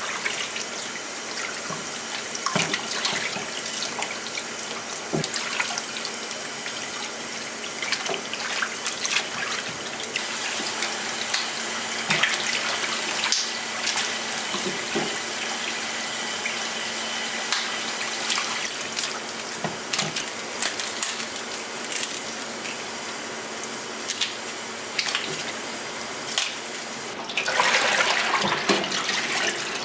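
Tap water running into a stainless steel bowl in a steel sink while hands scrub parboiled pork backbones, with scattered clicks and knocks of bone against the bowl. Near the end the water gushes louder as the bowl is tipped to drain, finishing the rinsing of the backbones.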